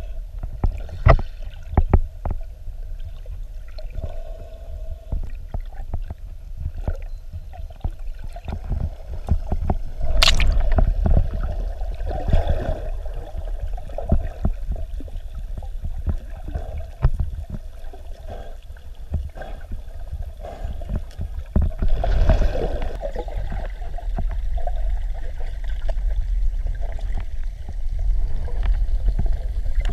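Underwater sound picked up by the camera during a scuba dive: a diver's exhaled bubbles gurgling in bursts over a low rumble and scattered clicks. The loudest bubble bursts come about ten seconds and twenty-two seconds in, with one sharp click just before the first.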